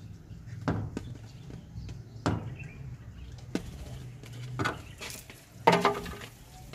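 A steady low hum with five short, sharp knocks spread through, the last one, near the end, the loudest.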